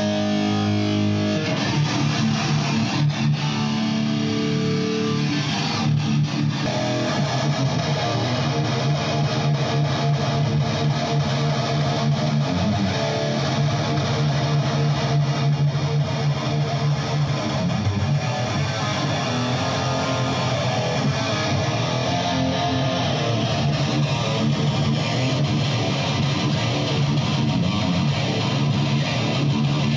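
Electric guitar played loud through stage amplifiers as a metal band sound-checks, with music going on steadily throughout.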